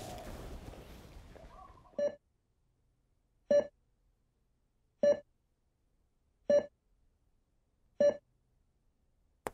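Hospital patient monitor beeping: five short, identical beeps, one about every second and a half. Faint outdoor ambience fades out before the first beep.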